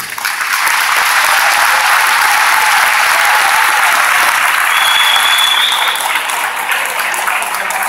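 Audience applauding, many hands clapping steadily, easing off slightly about six seconds in.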